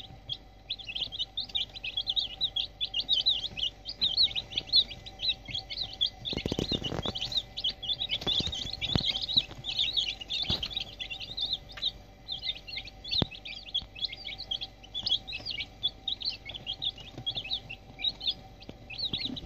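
A crowd of young chicks peeping without a break: a dense chorus of short, high cheeps. A brief rustling noise comes about a third of the way in.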